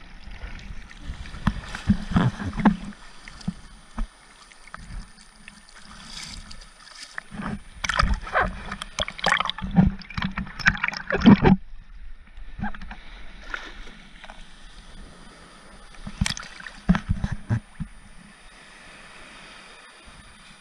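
Sea water sloshing and splashing around and over a camera sitting in the shallow surf, with irregular sharp clicks and knocks. The busiest splashing comes about halfway through and stops suddenly, followed by quieter washing with a few more splashes.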